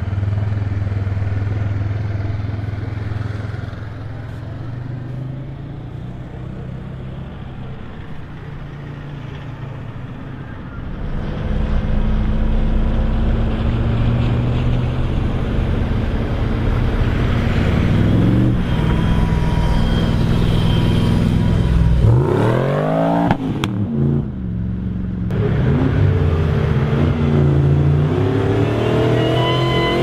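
Nissan Patrol's swapped-in LS6 V8 engine running, steady at first, then louder and revved hard several times, its pitch sweeping sharply up and down about two-thirds of the way through and climbing again near the end.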